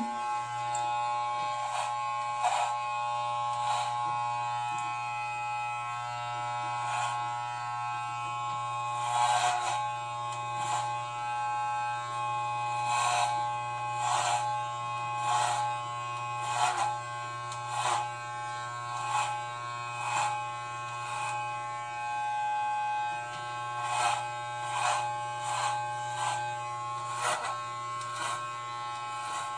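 Electric hair clippers running with a steady buzz while shaving a head. Short, louder rasps come again and again as the blade cuts into thick hair, about once a second in the second half.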